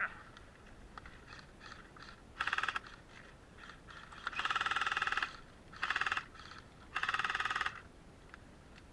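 Airsoft gun firing on full auto in four bursts, each a fast rattle of shots. The longest lasts about a second.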